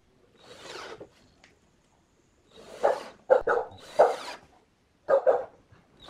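Cordless drill-driver running in short trigger bursts as it drives screws through a metal speaker grille into the cabinet. In the middle come four loud, short, sharp sounds, louder than the drill.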